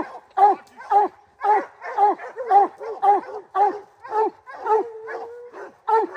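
Bear hound barking treed at a black bear: a steady run of barks, about two a second, each dropping in pitch, with one short held note about five seconds in.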